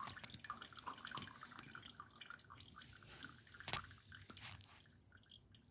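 Faint crackling and ticking from a drip coffee maker just switched on while it heats its water, with one sharper click a little under four seconds in.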